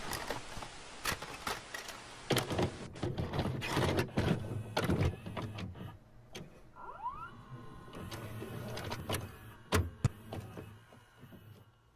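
A VCR loading and playing a tape: a run of mechanical clicks and clunks with motor whirring and tape hiss, a short rising motor whine about seven seconds in, and two sharp knocks near the end.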